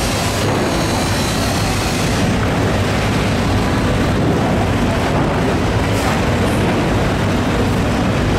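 Water running from a hose into a plastic bucket and splashing onto a wet concrete floor while knives are rinsed in the stream, over a steady low rumble.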